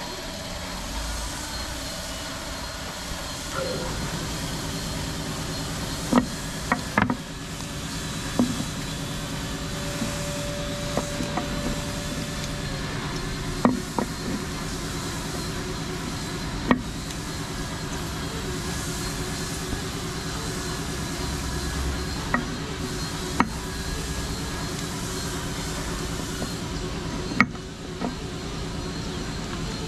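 A machine hum running steadily, stronger from about four seconds in, with sharp knocks every few seconds.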